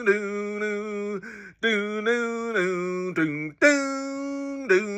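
A man singing a wordless melody in long held notes that step between pitches, with two short breaths about one and a half and three and a half seconds in.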